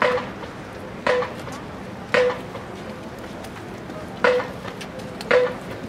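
Marching-band drum tapping a steady marching beat: sharp single hits with a short ring, about one a second, with one beat left out midway.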